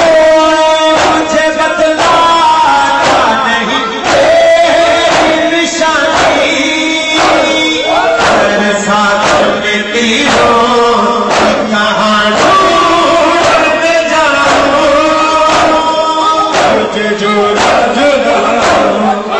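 Male voice singing an Urdu noha, a Shia lament, joined by a chorus of men's voices over a steady rhythmic beat.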